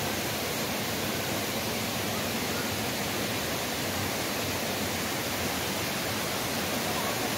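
Steady rush of water from small cascades spilling over rocks into a spring pool.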